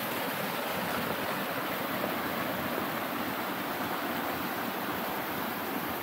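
Waterfall on a mountain stream: falling water rushing with a steady, even hiss.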